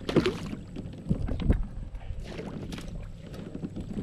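A hooked fish thrashing and splashing at the water's surface right beside a kayak as it is brought to the landing net, with a few sharp, irregular splashes, the loudest at the start.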